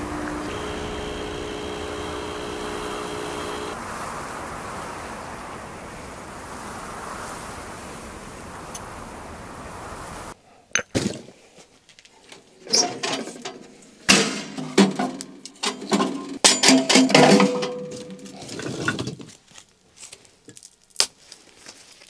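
A pod espresso machine runs as coffee pours into a cup: a steady hiss, with a hum and a higher tone in the first few seconds. After a sudden cut come irregular metal clinks and knocks from handling a small wood stove and a kettle set on its top.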